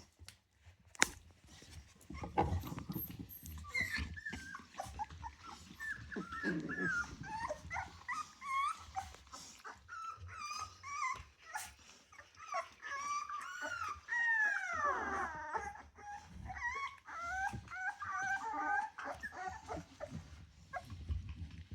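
Three-week-old Rottweiler puppies whining and squeaking, many short high whines overlapping, with one longer whine falling in pitch about two-thirds of the way through. Scattered knocks run underneath.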